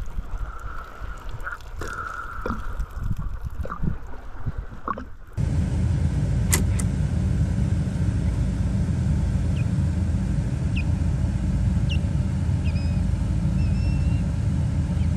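A few soft water splashes and drips. After about five seconds it changes suddenly to a steady low rumble of wind on the microphone, with a few faint, short bird chirps over it.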